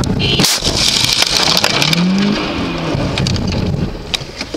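A car crash at highway speed, as the dashcam car hits an old Lada saloon that has pulled across in front of it. There is a loud impact about half a second in, followed by a few seconds of crunching and scraping that die away near the end.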